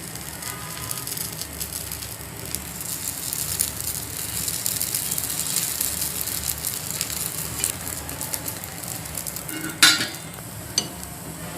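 Paniyaram batter frying in a little oil in a nonstick paniyaram pan, a steady crackling sizzle as the paniyarams are turned over. A sharp tap against the pan about ten seconds in, with a smaller one a second later.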